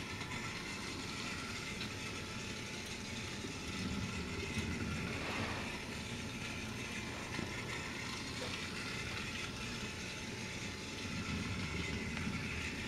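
Battery-powered Trackmaster toy train's small electric motor and gears whirring steadily as it runs along plastic track.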